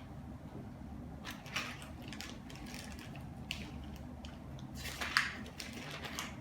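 Small accessories being handled: a few short clicks and rustles, with a louder click about five seconds in.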